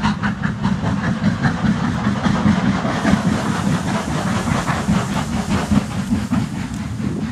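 Exhaust of a GWR Castle class four-cylinder 4-6-0 steam locomotive working hard up a steep bank: fast, even beats about five a second over a steady low rumble, growing fainter towards the end as it pulls away.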